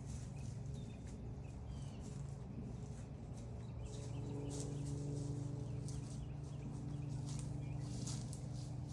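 Small birds chirping in short, quick calls that repeat throughout, over a steady low hum.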